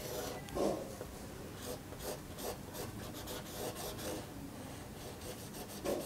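Whiteboard marker rubbing on the board in a series of short scratchy strokes as a solid wedge is shaded in. The strokes come quicker, back and forth, in the last second. There is a soft low thud about half a second in.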